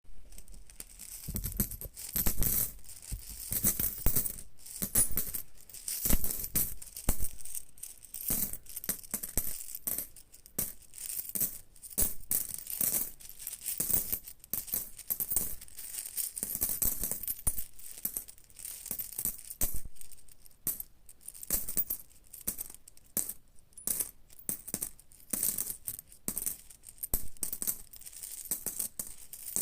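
Metal coins clinking and jingling as they are handled and shaken, a steady stream of sharp, irregular clicks.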